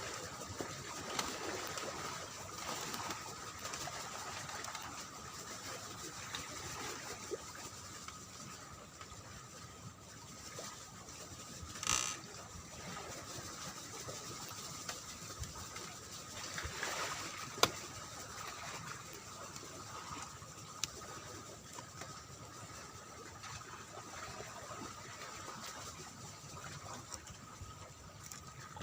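Steady background noise with a faint continuous hum, broken by a brief noise burst about twelve seconds in and a sharp click a few seconds later.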